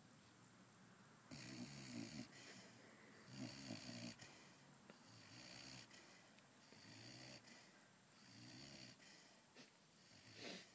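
Pitbull puppy snoring faintly in its sleep, starting about a second in and then one snore about every second and a half.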